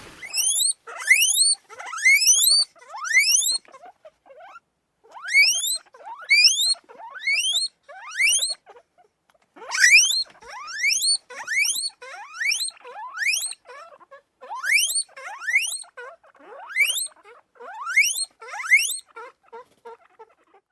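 Repeated high, rising squeals from an animal. Each call sweeps steeply upward in pitch, and they come in quick runs of several calls with short pauses between runs.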